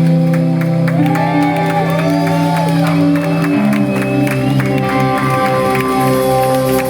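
Live rock band playing with sustained, ringing electric guitar notes and some pitch bends, with shouts from the audience.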